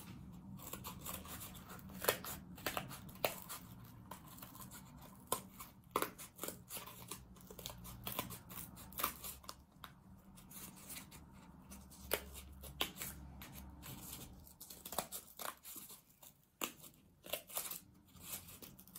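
Scissors snipping through cardboard in many short, irregular cuts while a circle is cut out.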